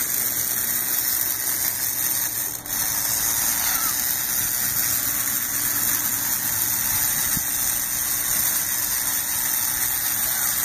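A motor running with a steady hum and hiss, with a brief drop-out about two and a half seconds in.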